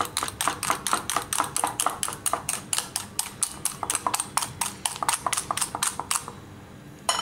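Spring coil whisk beating egg yolks in a bowl by hand: fast, even clacking strokes of the wire coil against the bowl, about five a second, stopping about six seconds in, with one more click near the end. The yolks are being beaten until light yellow.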